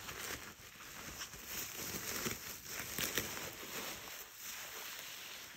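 Plastic bubble wrap and a foam packing sheet crinkling and rustling as they are pulled away by hand, in irregular crackles, loudest about halfway through.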